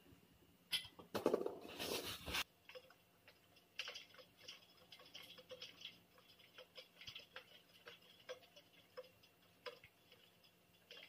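Hand assembly of a white metal table frame on cardboard: a short burst of rustling and scraping about a second in, then scattered light clicks and taps of metal parts being fitted.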